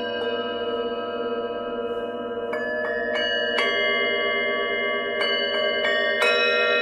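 Tibetan singing bowls struck one after another, each new strike adding a fresh ringing tone while the earlier ones ring on. The lower tones waver slowly as they overlap.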